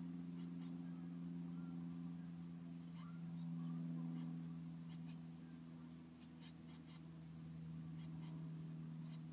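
A steady low hum, with faint, scattered brief high rustles and soft peeps from blue tit chicks shifting in the nest box.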